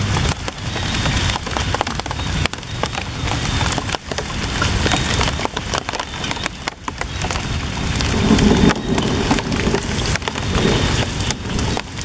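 Steady rain falling on leaves and a puddle, with many sharp crackling ticks of close drops.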